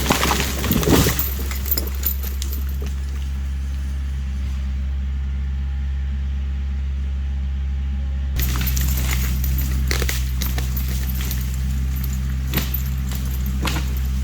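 Kioti tractor's diesel engine running steadily under a tow, with the note shifting and getting a little louder about eight seconds in. Sharp clanks and cracks from the tow chain and the dead oak being dragged come in the first couple of seconds and a few more times later.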